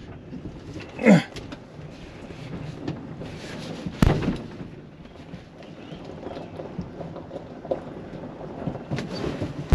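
Low rumbling and rattling of an old Ford F250 cab rolling with its engine off and its brakes gone. A single sharp thump comes about four seconds in, followed by a steady low rumble.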